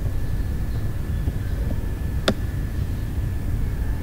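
Steady low background rumble with a faint constant high-pitched whine, and one sharp computer mouse click a little over two seconds in.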